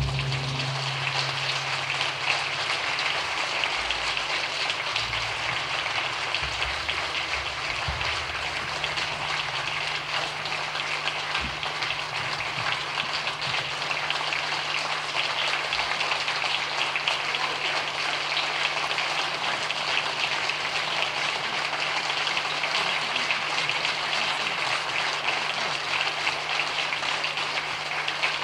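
Audience applauding: dense, even clapping that holds steady, with a constant low hum underneath.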